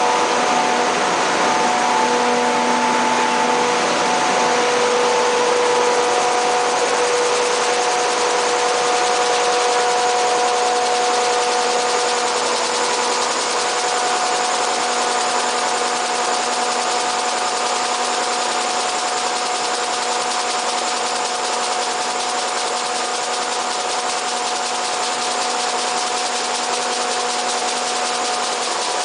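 A 5XZ-5A grain seed gravity separator running: the blower fans and deck drive give a steady hum with a few overtones, over an even rushing hiss of air and grain moving across the vibrating deck.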